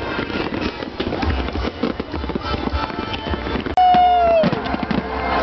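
New Year's Eve fireworks display over the sea: dense crackling and popping bursts. About four seconds in, a loud whistle slides downward in pitch for under a second.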